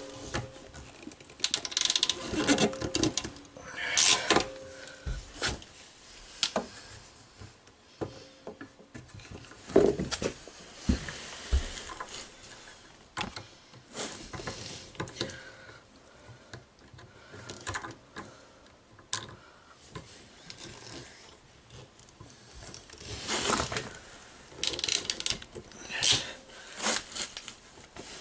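Irregular knocks, clicks and scraping from handling plumbing parts and tools, with pauses between the bursts.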